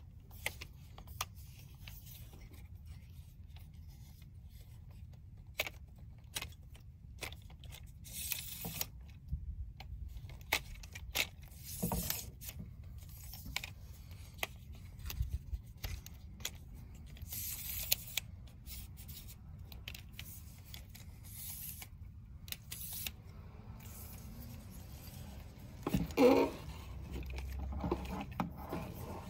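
Scattered clicks, scrapes and rustles of small objects being handled, with a louder clatter near the end, over a faint low hum.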